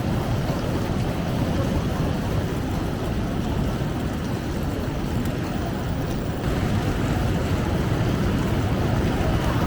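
Steady rumble of the Santa Claus Express night train running along the rails. It gets a little louder about six and a half seconds in.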